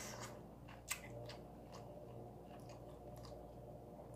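A person quietly chewing a mouthful of soft boiled chicken, with a few faint mouth clicks, the sharpest about a second in.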